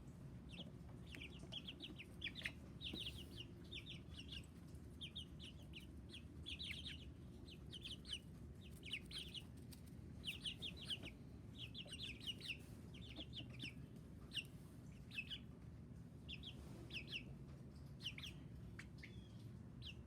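Baby chicks peeping: short, high chirps in quick runs of several at a time, with brief gaps between, over a faint steady low hum.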